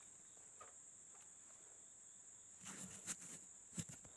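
Steady high-pitched insect chorus, crickets by its sound, faint and unbroken. From about two and a half seconds in, a run of sharp clicks and knocks close to the microphone comes over it, the loudest near the end.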